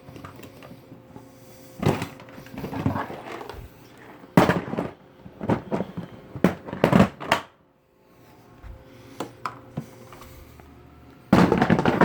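Hard plastic Milwaukee Packout tool boxes being handled, stacked and pushed together to lock: a series of loud knocks and clacks at irregular intervals.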